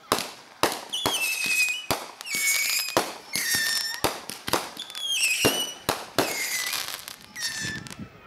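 Aerial fireworks in a rapid series of sharp bangs, with high whistles between them that fall in pitch.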